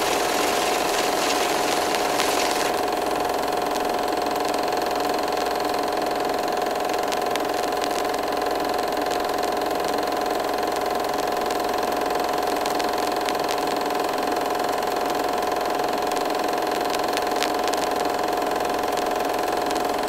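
Super 8 film projector running: a steady mechanical whir and clatter over a constant hum, with a few faint ticks about two-thirds of the way through.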